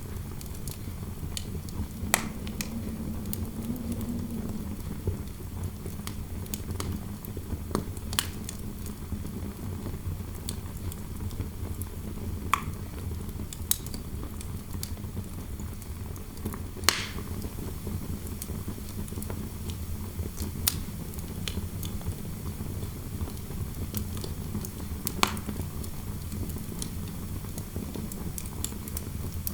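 Fireplace crackling with sharp, irregular pops over a steady low rumble of wind indoors; a low wind howl wavers briefly a few seconds in.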